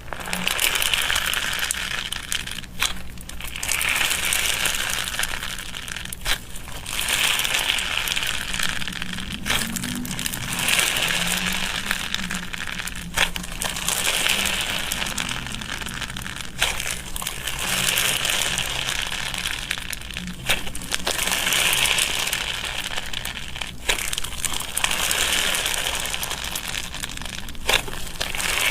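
Slime being squeezed and worked by hand, a crinkly, crackling squish that swells and eases in a regular rhythm about every three and a half seconds.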